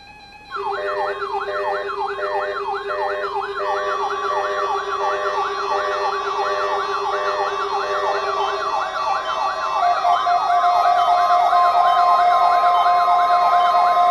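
Layered electronic alarm tones start suddenly: a fast warbling siren sweep about three times a second over pulsing beeps and several steady tones. Further tones come in and drop out, and the whole grows louder about ten seconds in.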